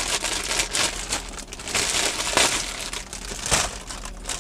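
Thin plastic bag crinkling and rustling as a hand rummages in it for bread rolls, in uneven handfuls, loudest about halfway through and again near the end.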